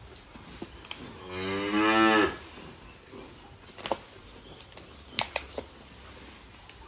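Cattle mooing once, a loud call about a second long that starts about a second in and drops in pitch at the end. A few short, sharp knocks follow.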